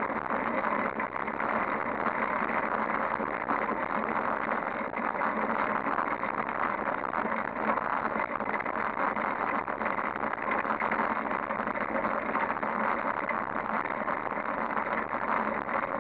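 Steady rush of wind and tyre-on-asphalt noise from a bicycle being ridden along a road, picked up by a handlebar-mounted camera.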